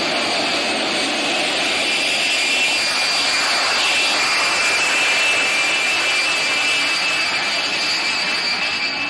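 Small homemade turbojet engine on a mobility scooter running at full power: a loud, steady jet rush with a high turbine whine.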